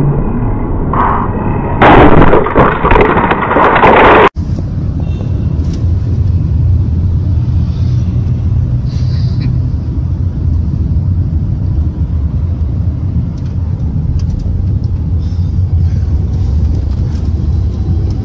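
A loud crash lasting about two seconds, recorded through a dashcam, cut off abruptly. Then the steady low rumble of road and engine noise inside a moving car.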